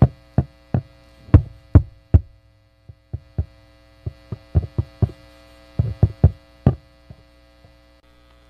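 Metal taps on a steel beam, picked up by a microwave-oven transformer clamped to the beam and played through a stereo speaker as sharp knocks. About twenty knocks come in irregular clusters and stop about seven seconds in, over a steady electrical hum from the pickup and amplifier.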